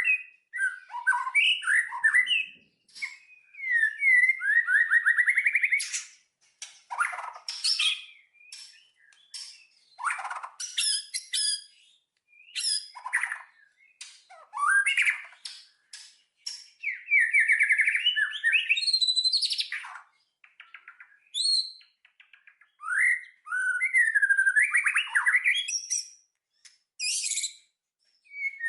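A songbird singing in varied phrases of a second or two, with fast rattling trills, sliding whistles and high chirps, separated by short pauses.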